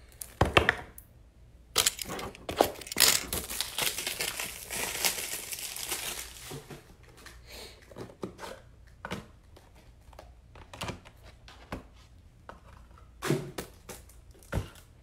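Plastic packaging crinkling, heaviest from about two to six seconds in, then scattered light clicks and taps as it is handled.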